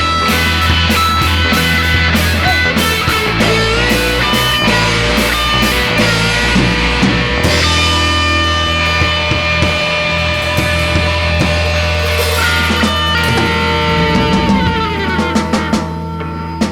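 Instrumental passage of a rock song: electric guitar lines over a steady bass, with drum and cymbal hits through the first half that thin out in the second.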